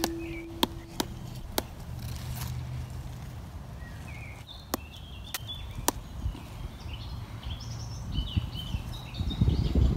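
Outdoor ambience with small birds chirping in short calls through the second half, over a low rumble. A few sharp clicks come in the first half and louder low thumps near the end. The last held note of a ukulele dies away in the first second or so.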